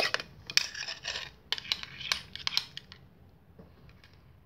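Light clicks and scraping against a bowl as slime is mixed and pulled by hand. The sounds die away about two and a half seconds in.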